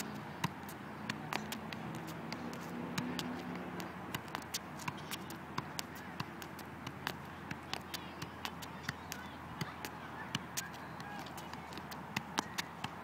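Soccer ball being juggled: a run of quick taps as it is kept up off the foot, knee and head, about two to three touches a second at an uneven pace.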